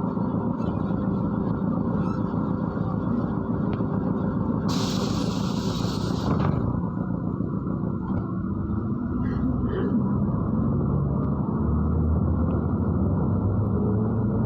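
Interior of a MAZ-103 city bus at a stop: its engine running with a steady rumble, a burst of compressed-air hiss lasting about two seconds about five seconds in, and the engine note rising near the end as the bus pulls away.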